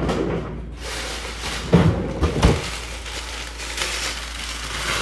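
Knocks and thuds of a kitchen door or drawer being opened and shut, sharpest about two seconds in, then a rustling hiss building near the end as a plastic bag of ice is handled.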